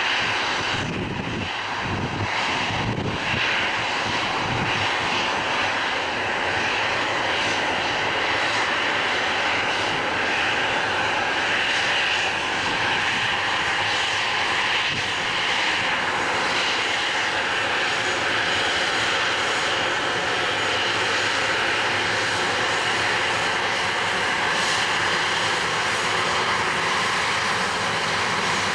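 Airbus A321 airliner's twin jet engines at taxi power as it rolls slowly past: a steady whine and rush, with a steady droning tone held underneath. A few low thumps come in the first few seconds.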